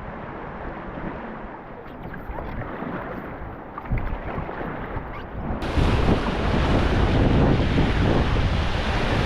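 Whitewater rushing and splashing around a raft running a Class III rapid, with wind buffeting the microphone. A little over halfway through the water noise turns suddenly louder and brighter and stays that way.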